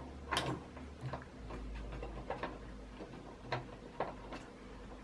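A handful of separate light clicks and taps as fingers turn an eccentric nut and handle the metal bed carriage of a Creality CR-10 3D printer.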